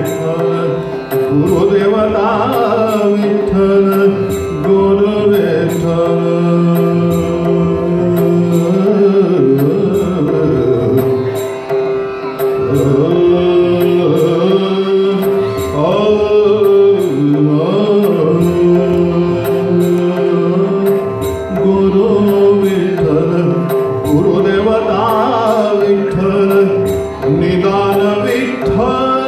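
A man singing a slow, melodic song into a microphone in an Indian style, his voice gliding between notes over a steady held drone note, with light percussion ticks keeping time.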